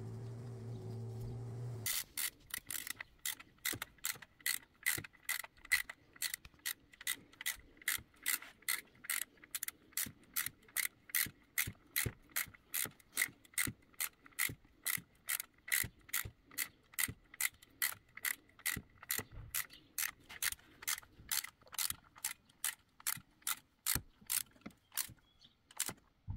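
Ratchet wrench clicking in a steady rhythm, about two to three clicks a second, during engine reassembly.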